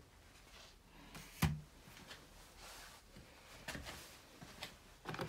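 Unboxing handling sounds: a single sharp knock about a second and a half in, as of a small plastic unit set down on a wooden table. A few lighter clicks and rustles of the box and packaging follow.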